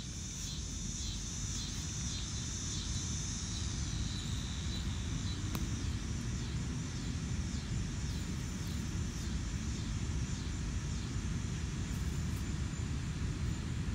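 Steady low outdoor rumble, with a high pulsing hiss over it for the first four seconds that then fades.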